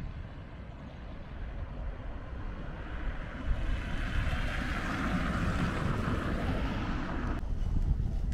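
Outdoor street ambience: a steady low rumble, with a hissing rush that swells from about halfway in and cuts off suddenly near the end.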